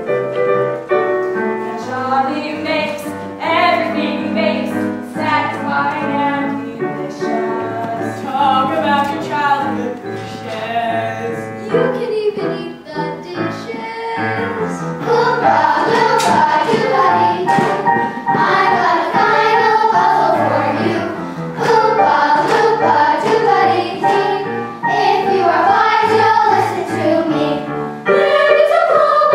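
A cast of young performers singing a musical-theatre finale song with instrumental accompaniment; the singing grows louder and fuller about halfway through.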